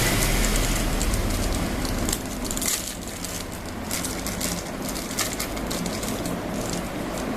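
RC crawler rolling over rough ground: irregular crunching and crackling from the tyres on loose debris. The motor runs quieter from about two seconds in.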